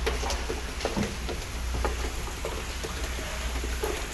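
Irregular light knocks and clicks from gear being handled in a small boat, over a steady low hum.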